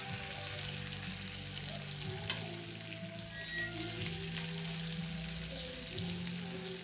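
Butterflied milkfish sizzling steadily on a stovetop grill plate as it cooks, with a light tap about two seconds in.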